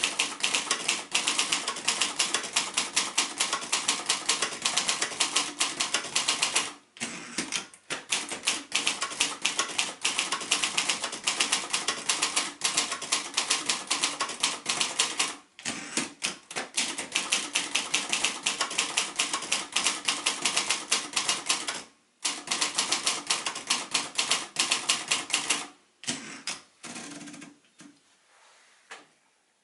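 Royal Mercury ultraportable manual typewriter, built by Silver-Seiko, being typed on fast: a rapid, continuous clatter of keystrokes broken by three brief pauses, trailing off into a few scattered strokes near the end.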